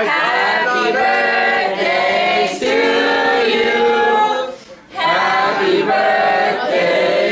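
A group of people singing together without accompaniment, holding notes in short phrases, with a brief break about five seconds in.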